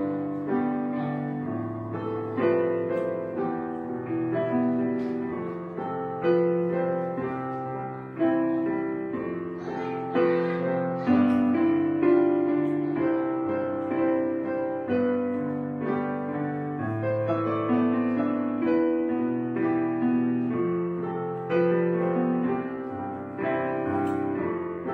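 Background music: a gentle solo piano piece, notes struck one after another in a slow, calm melody.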